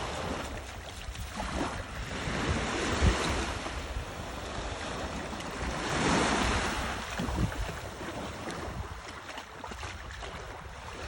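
Sea waves washing onto the shore, swelling and ebbing, loudest about six seconds in, with wind buffeting the microphone.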